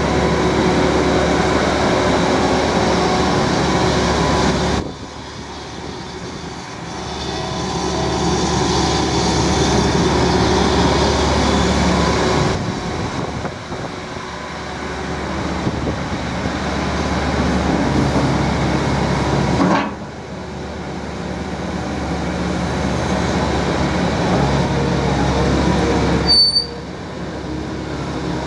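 Caterpillar M315 wheeled excavator's diesel engine running under hydraulic load as the boom and bucket move and the machine drives, the engine note steady and heavy. The sound drops suddenly three times, about five, twenty and twenty-seven seconds in, and each time builds back up over several seconds.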